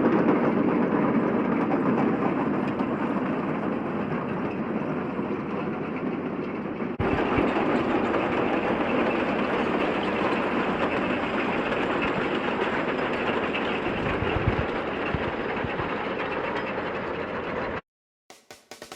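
A T-40 tractor's air-cooled diesel engine running under load, with the potato harvester's machinery clattering over it in a dense, steady noise. The sound jumps abruptly about a third of the way in and cuts off suddenly near the end.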